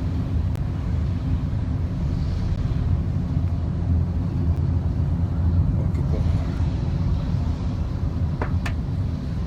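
Steady low road and engine rumble of a car in motion, heard from inside the cabin, with two faint clicks near the end.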